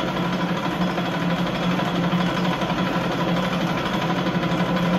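Electric starter cranking a Kawasaki JS440 jet ski's two-stroke twin engine with the choke on, turning it over steadily without it firing: no fuel has yet reached the engine.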